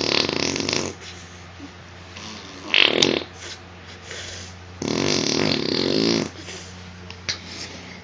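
Imitation fart noises made by a person: three blasts, the first at the start, a short one about three seconds in, and a longer one about five seconds in.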